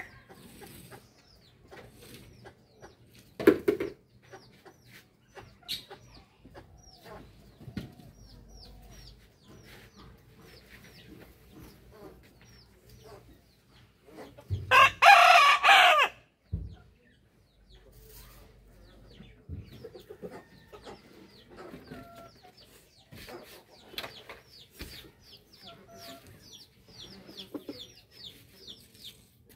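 A rooster crows once, loud and long, about halfway through, amid chicken clucking, a short loud call near the start and many faint high chirps throughout.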